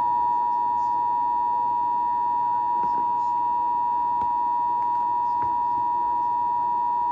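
Emergency Alert System two-tone attention signal: two steady tones sounded together as one harsh, unbroken chord, heard over AM radio. It marks the start of an emergency alert broadcast, here a severe thunderstorm warning.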